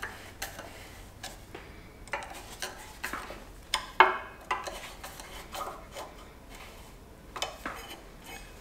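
Light metal clicks and scrapes of a screwdriver working the screws of a sheet-metal air cleaner base plate being fastened to a small-engine carburetor. There is a sharper click about four seconds in.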